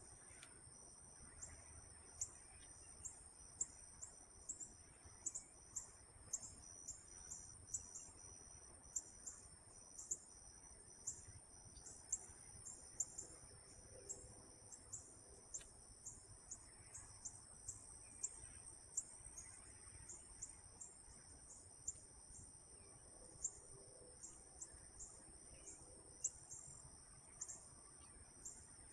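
Insects chirping: a steady high-pitched trill with short chirps repeating a couple of times a second.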